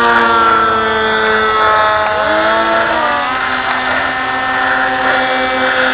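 Motor of a radio-controlled foam F-22 model airplane whining in flight during a low pass. Its several steady tones slide in pitch about two to three seconds in.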